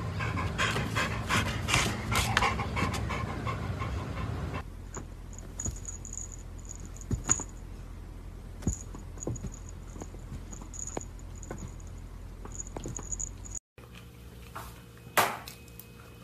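A dog panting, then a quieter stretch with a few light clicks and short runs of faint high-pitched squeaks, and one sharp knock near the end.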